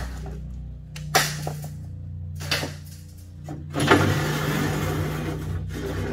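Sheet-metal egg trays being handled and pulled out of a wooden cabinet incubator: a few sharp metal clanks, then a sliding scrape of a tray being drawn out near the end.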